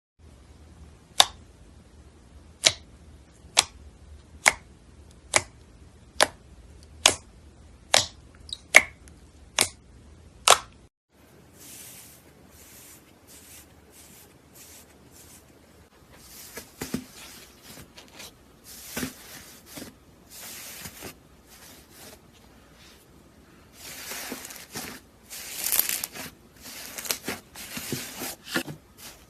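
Slime being handled up close: about a dozen sharp pops roughly once a second for the first ten seconds, then, after a cut about eleven seconds in, irregular crackling and squishing that grows louder and denser near the end.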